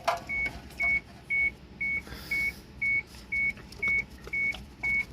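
Electronic warning beep: a short high tone repeating steadily about twice a second, with a few light clicks of handling.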